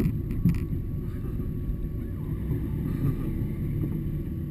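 Car driving along a narrow lane, heard from inside the cabin with the camera on the dashboard: a steady low rumble of engine and tyres, with a couple of light knocks about half a second in.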